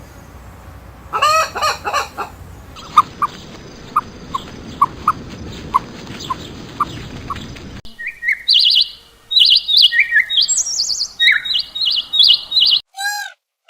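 A chicken clucking about a second in, then a run of short single peeps roughly twice a second over a noisy background, then a small songbird's rapid high chirping phrases for the last few seconds, ending with a short arched call.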